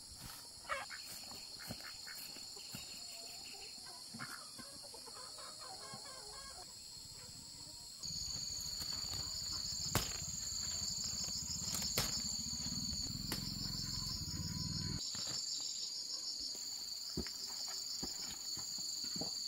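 Insects buzzing steadily in two high tones, louder from about eight seconds in, with a low rumble from about eight to fifteen seconds and a couple of sharp clicks.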